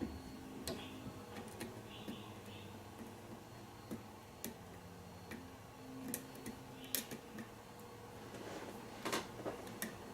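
Light, irregular clicks and ticks of a lock pick working the pin stacks of a pin-tumbler lock held under tension during single-pin picking, the sharpest about seven and nine seconds in. A faint steady hum sits underneath.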